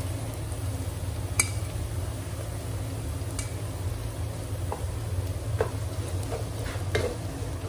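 Onions frying gently in oil in a nonstick pot as ground masala powders go in and a wooden spatula stirs them, with a few light knocks and scrapes against the pot. A steady low hum runs underneath.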